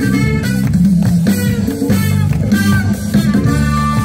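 Live band music, loud and steady, with a prominent bass guitar line, guitar, and sustained horn notes from a brass section.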